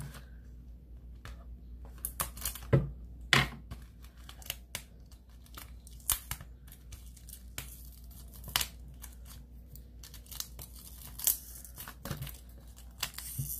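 Plastic wrapping on a Blu-ray case being picked at and torn off by hand: irregular crinkling with sharp crackles, the loudest a few seconds in.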